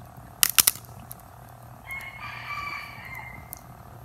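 A rooster crows once, about two seconds in, with a single drawn-out call. It comes just after a quick cluster of sharp snaps about half a second in, which are louder than the crow.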